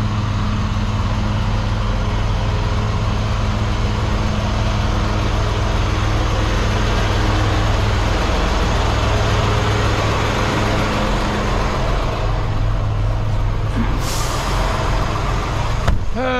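Semi-truck diesel engine idling steadily, with a short high hiss near the end.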